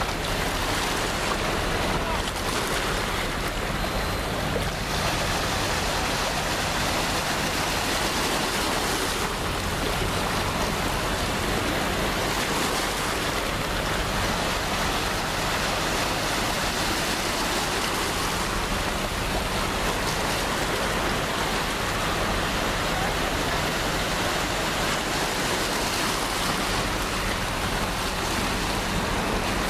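Steady rushing noise of wind and sea wash on an outdoor microphone, with a low, steady engine drone underneath.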